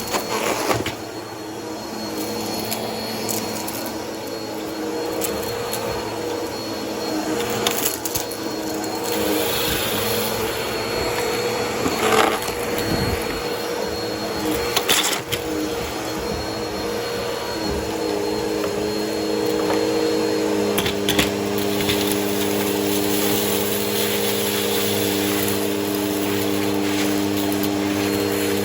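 Vacuum cleaner running over a dirty carpet with a steady motor hum, its intake crunching and crackling as it sucks up gritty, crunchy debris, with scattered sharp clicks.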